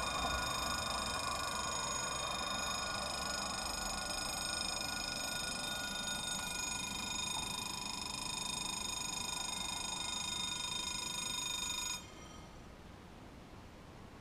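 Level-crossing warning bells ringing steadily while the barriers lower, then cutting off suddenly about twelve seconds in as the barriers come fully down.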